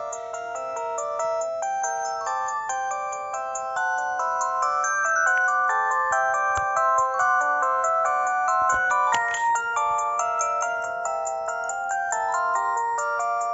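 LG GB115 mobile phone playing one of its built-in polyphonic ringtones: a synthesized melody with several notes sounding together, and a brief sweep effect about nine seconds in.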